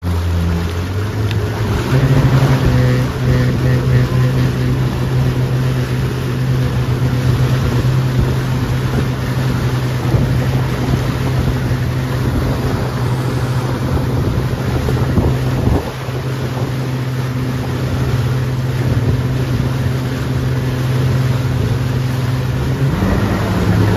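Motorboat engine running steadily under a tow load, over the rush of its churning wake. The engine note rises about two seconds in and again near the end.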